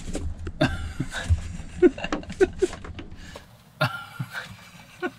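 Camera microphone brushing against clothes hanging in a wardrobe. A muffled rubbing rumble stops about three and a half seconds in, with a string of small clicks and knocks and a few short throaty sounds.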